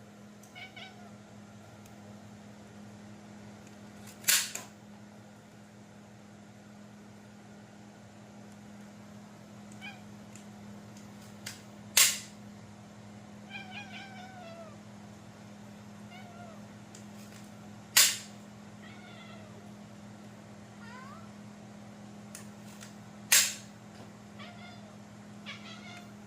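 A cat making a series of short, faint meows, some sliding in pitch, over a steady low hum. Four loud, sharp clicks, about six seconds apart, stand out above the calls.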